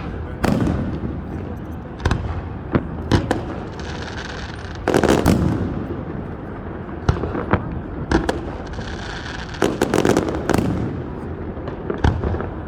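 Fireworks going off: a string of sharp bangs, with two stretches of dense crackling about five seconds in and again near ten seconds.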